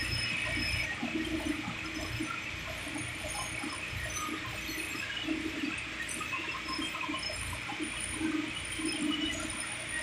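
Steady rushing noise of ice plant machinery running, with faint irregular sounds over it.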